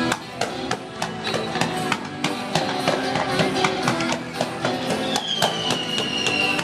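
Music with plucked guitar and a steady beat of sharp percussive taps. A single falling whistle-like tone comes in about five seconds in.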